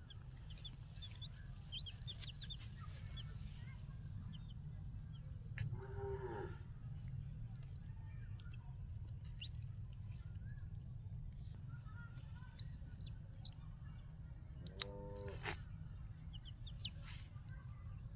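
Fowl calling: scattered small high chirps, with two louder, longer calls about six and fifteen seconds in, over a steady low rumble.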